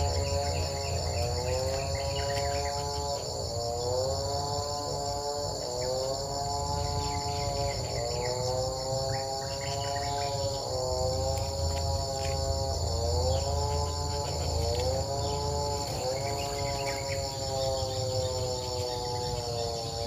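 Steady insect chorus, a fast, even, cricket-like pulsing trill. Under it runs a continuous humming tone that dips and rises again every few seconds.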